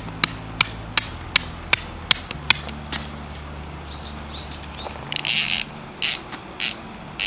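A hammer striking a metal tent peg down into gravel: about eight sharp, separate strikes over the first two and a half seconds. Then a few short rustling, scraping sounds follow as the peg and guy line are handled, with faint bird chirps.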